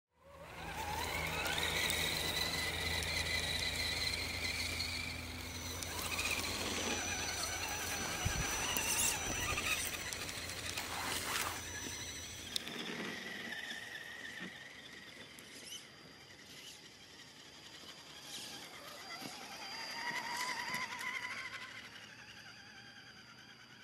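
Electric motor and gear drivetrain of a radio-controlled Axial Wraith crawler whining as it drives through snow. The whine rises in pitch about a second in as it speeds up, drops away about halfway through, and rises again, fainter, near the end.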